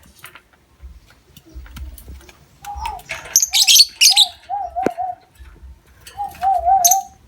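Lovebirds chattering in short shrill bursts, about three seconds in and again near the end. A lower warbling call wavers up and down with them.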